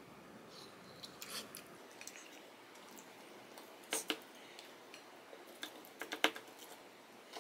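Scattered light clicks and taps of small objects being handled: a pair about four seconds in and a quick cluster around six seconds.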